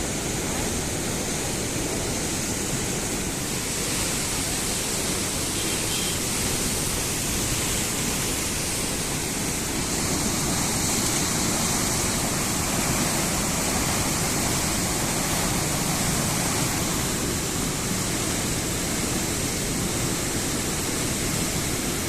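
Indus River floodwater rushing steadily, a continuous even roar of fast-flowing water at high flood.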